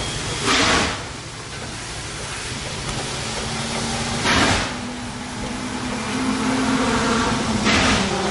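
Norfolk and Western 611, a J-class 4-8-4 steam locomotive, moving at a crawl: three loud hissing exhaust chuffs a few seconds apart over a steady low rumble.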